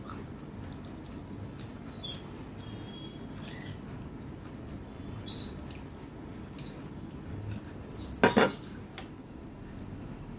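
Eating by hand from a steel plate: fingers mixing rice and mutton curry, with faint wet clicks and scrapes, and one sharp, louder clink about eight seconds in.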